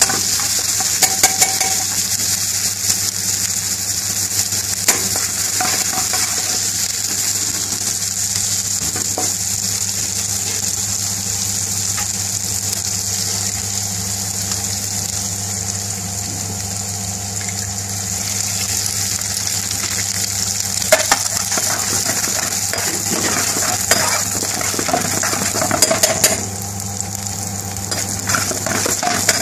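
Chopped vegetables sizzling in hot oil in a wok, with a steady frying hiss, while a metal spoon stirs them and scrapes and clinks against the pan now and then.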